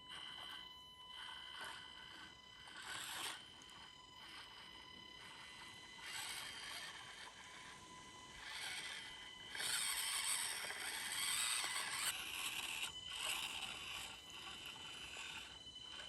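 Axial SCX24 micro RC crawler driving, its small brushed electric motor and gears whining in thin steady high tones. Over the whine come scraping bursts of tyres and chassis working over rough ground, loudest for a couple of seconds past the middle.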